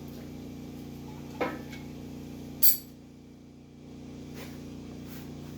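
Two sharp metal clinks of tools and engine parts being handled during an engine teardown, the second louder and ringing, over a steady low hum.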